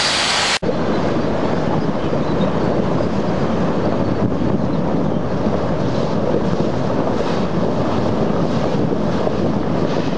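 Steady low noise of a ship's hull rolling down the slipway on rubber launching air bags, mixed with wind buffeting the microphone. The sound cuts out briefly about half a second in, then carries on.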